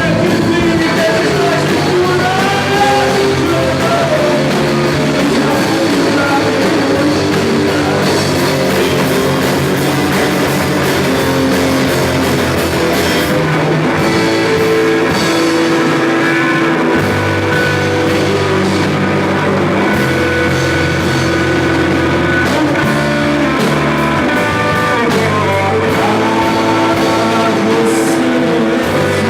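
Live rock band playing: electric guitars and bass over a drum kit, loud and steady.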